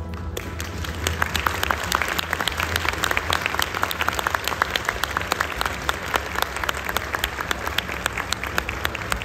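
Large audience applauding: dense, steady clapping of many hands.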